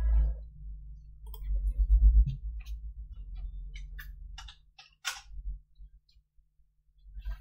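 Computer mouse clicking, a string of irregular single clicks, the sharpest about five seconds in, over a low microphone rumble that fades out around the same time.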